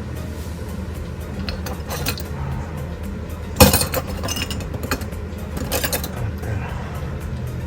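Small metal tools clinking and tapping on a jeweller's bench, with a few light clicks and one sharp knock about three and a half seconds in.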